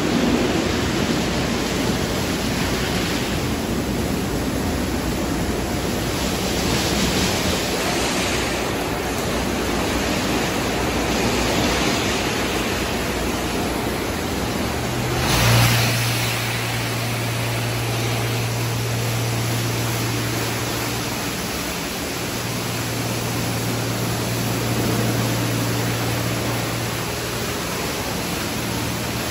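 Automatic tunnel car wash running: water spray and rotating wash brushes working over a vehicle make a steady rushing hiss. About halfway through there is a brief louder surge, then a steady low machine hum joins the rush.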